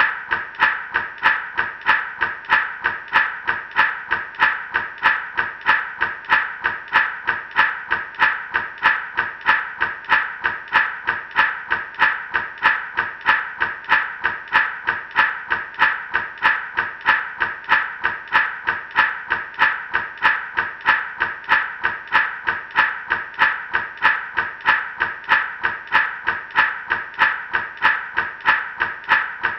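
Gourd rattle shaken in a steady, even rhythm of about three shakes a second.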